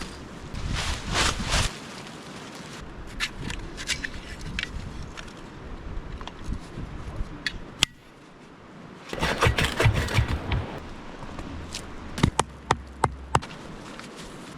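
An ultralight tent being pitched: fabric rustling and scraping in two spells, with scattered sharp clicks and a quick run of sharp knocks near the end.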